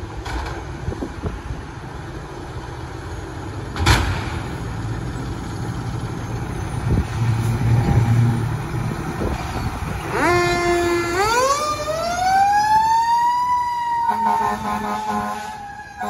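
A fire truck's engine runs and pulls away, with a sharp knock about four seconds in. About ten seconds in its siren winds up, rising steeply in pitch for a few seconds and then slowly falling. Near the end a steady air horn blast sounds over it.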